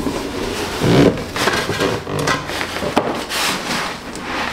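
Foam and cardboard packing being handled: an irregular run of rubbing and scraping strokes.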